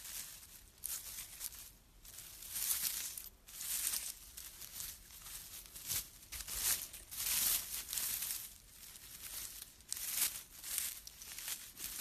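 Dry pine needles and forest litter rustling and crackling as a hand brushes them aside to uncover a mushroom, in an irregular string of short scrapes.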